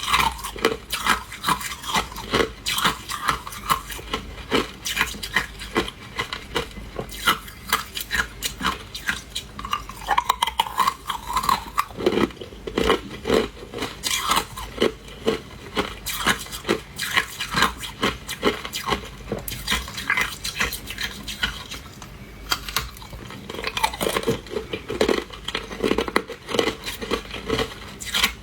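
A person biting and chewing hard ice, a steady run of sharp crunches and cracks.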